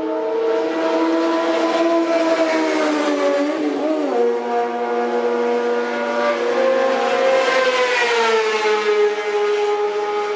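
Sport motorcycle engines running hard at high revs on a race circuit. The pitch climbs, drops suddenly about four seconds in at a gear change or roll-off, then rises again and falls away after about eight seconds as the bikes brake and pass.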